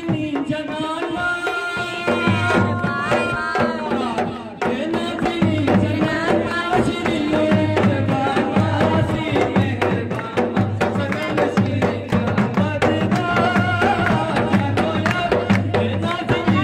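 Live folk music: a large double-headed barrel drum (dhol) beats a steady, driving rhythm, with a bending melody line held over it.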